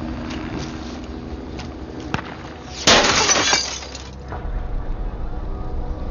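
Glass shattering once, sudden and loud, about three seconds in, with a few sharp clicks before it over a low steady background rumble.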